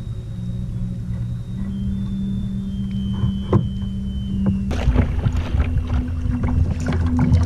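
Bixpy Jet electric kayak motor running with a steady low hum. About five seconds in the hum steps up a little in pitch, and water slapping and splashing against the hull gets louder.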